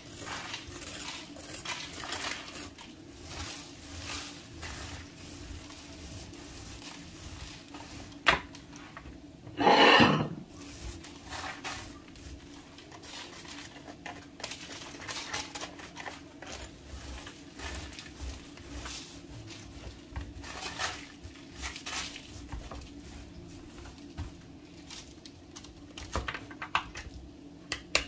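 A knife and fingers cracking and scraping a coarse salt crust off a salt-baked chicken on parchment paper: irregular crunching, scraping and paper rustling with scattered clicks of the knife. A sharp click comes about eight seconds in and a louder noise lasting about a second about ten seconds in, over a faint steady hum.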